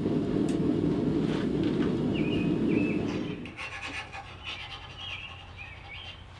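File test on a freshly quenched 1095 steel blade: a file scraped along the hardened edge, skating rather than biting, the sign that the quench hardened the steel. A steady low rushing noise runs under it and stops about halfway through, and a bird chirps over and over.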